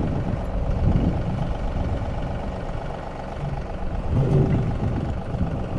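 Diesel engine of a John Deere 2038R compact tractor running steadily at a fairly constant speed, with wind buffeting the microphone.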